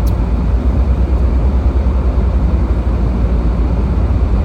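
Steady low rumble of a car's engine and road noise heard from inside the cabin while driving slowly, with a faint click right at the start.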